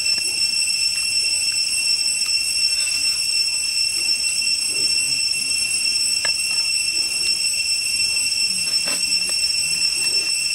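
Cicadas droning in one steady high-pitched chorus, with a couple of faint clicks about six and nine seconds in.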